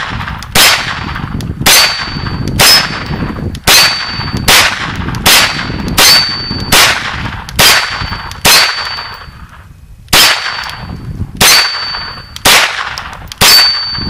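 Kel-Tec Sub2000 Gen 2 9mm carbine firing fourteen single semi-automatic shots at a deliberate pace of about one a second, with a short pause about two-thirds of the way through. A high metallic ring follows most shots.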